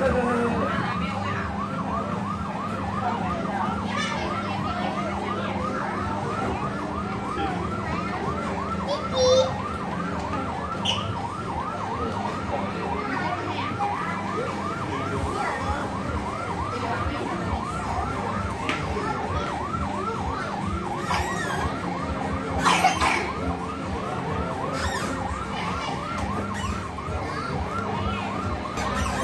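Electronic fire-engine siren sound effect from a coin-operated kiddie ride's speaker: a fast yelping tone that rises and falls several times a second without a break. A couple of brief louder noises cut in, about nine seconds in and again about twenty-three seconds in.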